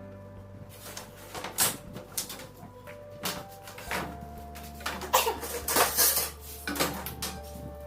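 Background music under irregular short knocks and scrapes of hand work on a wooden screen frame, clustered most densely a little past the middle.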